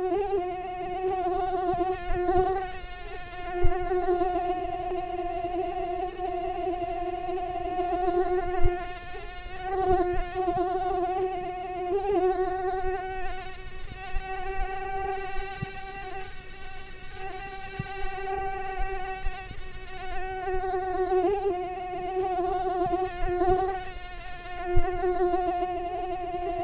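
Mosquito wings whining: a steady, high buzzing tone with overtones that wavers slightly and dips briefly every few seconds. A few faint low thumps sound now and then.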